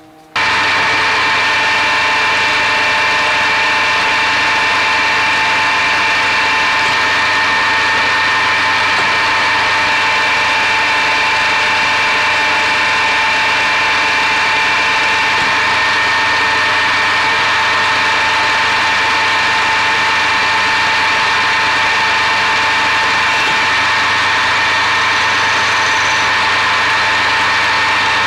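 Metal lathe running steadily while its tool turns a steel shaft, a continuous machine whine with several steady tones over a low hum. It cuts in suddenly at the start.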